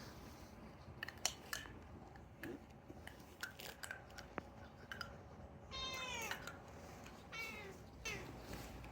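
Domestic cat meowing quietly: a drawn-out meow falling in pitch about six seconds in, then two shorter meows near the end, with a few faint clicks before them.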